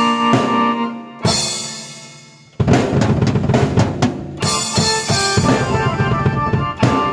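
Drum kit and keyboard played together: held keyboard notes over the drums, then a hit about a second in that rings out and fades. A rapid drum fill follows, and the beat comes back with keyboard notes over it.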